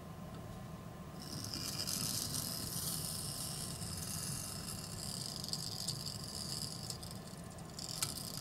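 Homemade paper clip motor running fast: its copper magnet-wire coil spins in its paper clip supports with a steady high whir and a faint rattle of wire rubbing. The whir comes in about a second in, dips briefly near the end and picks up again with a click.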